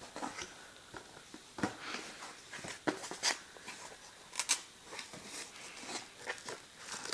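Hands handling and opening a cardboard product box: irregular soft scrapes, taps and rustles of cardboard.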